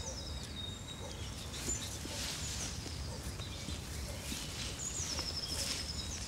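Outdoor ambience with a bird singing a short descending run of high notes, once right at the start and again about five seconds in, over a low steady rumble.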